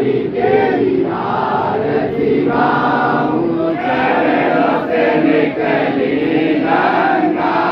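Crowd of devotees singing an aarti chant together, many voices in unison with slowly shifting pitch.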